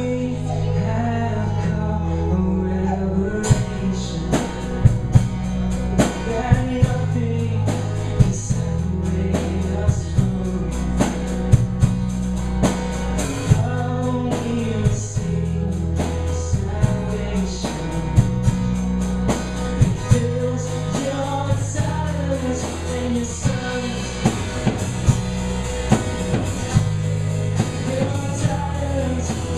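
Live worship band playing a rock-style song on drum kit, bass and guitars. The drums come in about three and a half seconds in with a steady beat.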